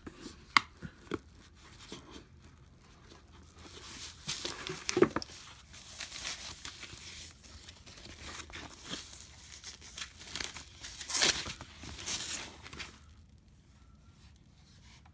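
Thin foam packing sheet rustling and crinkling as it is handled and peeled off an electronic device in its cardboard box, with a few sharp clicks in the first seconds. The rustling is loudest about eleven seconds in and stops about two seconds before the end.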